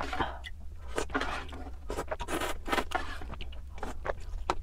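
Close-miked eating sounds from a bowl of ramen: wet slurps and mouth noises in short irregular bursts, with small sharp clicks between them.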